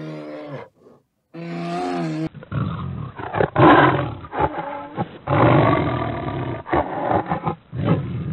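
Two short, steady-pitched moaning calls from a bear, then, from about two seconds in, a cheetah growling and snarling in rough, uneven bursts.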